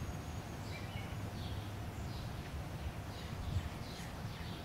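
Faint bird chirps, short falling notes repeated every half second or so, over a steady low outdoor rumble.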